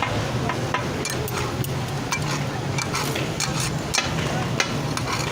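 Metal spatulas tapping and scraping irregularly on a tawa griddle where chicken is cooking, over a steady low hum.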